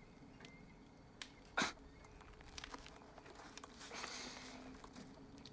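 A book being handled over quiet room tone: a sharp tap about a second and a half in, then a short rustle about four seconds in as it is opened.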